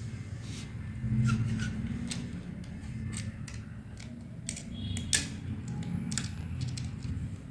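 Small metal screws and nuts being handled and fitted to a plastic battery holder and base board, giving scattered light clicks and taps. A low rumble of handling runs underneath, strongest about a second in.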